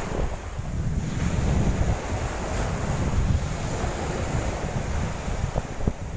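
Sea surf breaking and washing up a sandy beach, with wind buffeting the microphone in an uneven low rumble.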